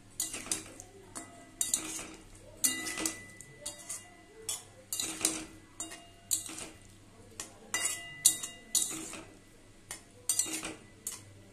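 Spatula scraping and knocking against a metal pan while stirring a thick potato and lentil-fritter curry, in irregular strokes about once a second.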